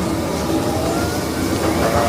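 Steady rumbling run of a roller coaster train on its track, the Expedition Everest ride vehicle.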